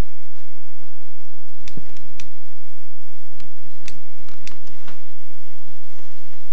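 Handling noise from a hand-held camcorder carried through a house: scattered sharp clicks and soft, irregular low thumps like footsteps, over a steady hiss with a faint hum.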